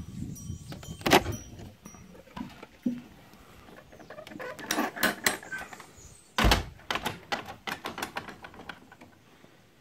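Scattered knocks and clicks of someone moving through a bamboo-and-wood tree house, with a loud knock about a second in and a heavy thump about six and a half seconds in, followed by a quick run of smaller clicks that fades out.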